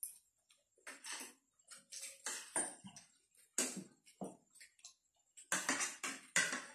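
Eating at a dinner table: irregular clicks and scrapes of spoons and forks on ceramic plates, mixed with chewing and lip smacking, getting busier near the end.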